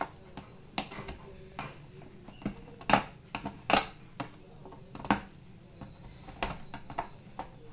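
Fingernails picking, scratching and tapping at a sticker on a TV's plastic back cover, searching for a screw hidden under it: a string of irregular sharp clicks and short scrapes, about a dozen.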